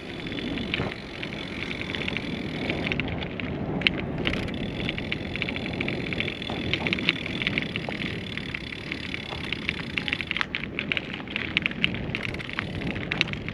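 Bicycle ride: wind buffeting the microphone with steady rolling noise, and a fast, irregular clicking that sets in about three seconds in and grows thicker near the end.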